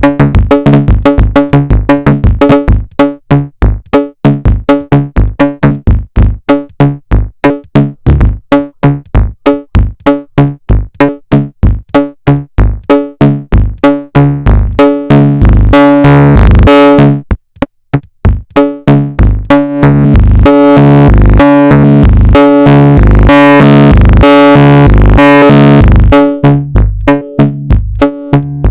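Make Noise 0-Coast analog synthesizer playing a fast arpeggiated sequence, loud, with notes pulsing several times a second. It stops briefly about two-thirds of the way through and comes back with a brighter, buzzier tone.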